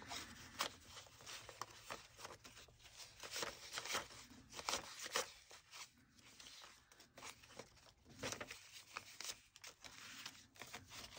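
Paper banknotes being counted by hand: faint, crisp rustles and flicks, several a second at an uneven pace, as bills are peeled off a stack one by one.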